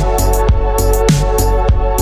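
Electronic dance music for a Zumba workout, with a deep bass, held synth notes and a steady beat of a little under two kicks a second.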